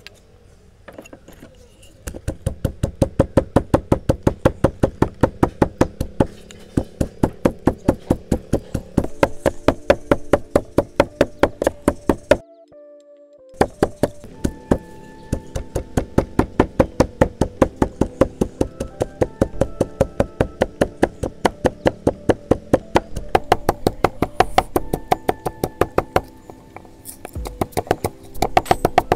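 Background music with a fast, steady knocking beat over held notes. The beat comes in about two seconds in and drops out for about a second around twelve seconds in.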